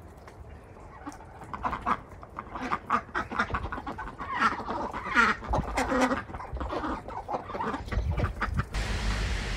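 A flock of Indian Runner ducks quacking. The calls start about a second in and crowd together through the middle. A steady hiss and low rumble come in near the end.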